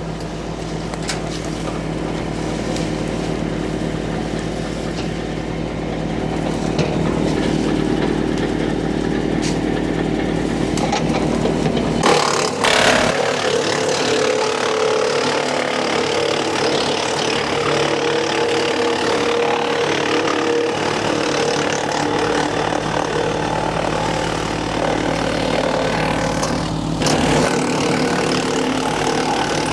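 Woodland Mills WC68 wood chipper running steadily under its engine, with a loud sudden burst of chipping about twelve seconds in as the last branch is fed through the chipper.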